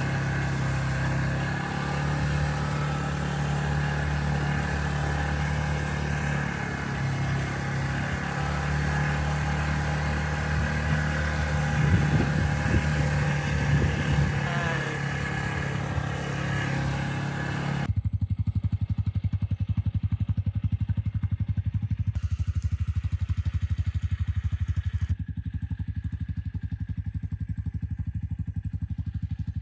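ATV engine running as the quad rides over a dirt road. About 18 seconds in it changes abruptly to a lower, steady, fast even putter of the engine idling close by.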